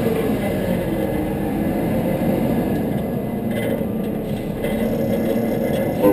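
Front-load garbage truck's engine running steadily with road noise as the truck drives slowly, and a short knock near the end.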